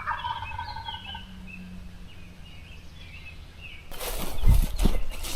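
Wild turkey gobbling once, a rapid rattling call in the first second, with small birds chirping faintly behind it. About four seconds in, loud rustling and thumping takes over.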